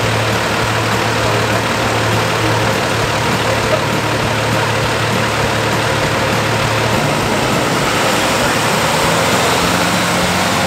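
School bus engine idling with a steady low hum; about seven seconds in its note rises as the bus pulls away.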